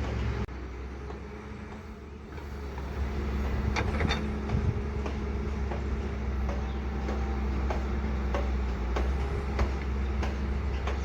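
Heavy machinery engine running with a steady low drone, with scattered sharp clicks and knocks over it. The sound drops suddenly about half a second in and builds back up over the next couple of seconds.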